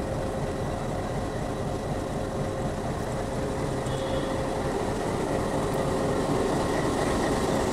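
YDM-4 meter gauge diesel locomotive idling steadily at a standstill, a low engine rumble with a faint steady tone above it, growing slightly louder near the end.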